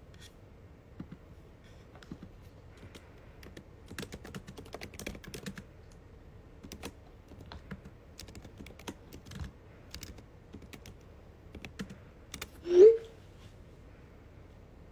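Long fingernails tapping on a phone's touchscreen in irregular clicks, like typing, with a denser run of taps a few seconds in. Near the end comes one brief, louder sound that rises in pitch.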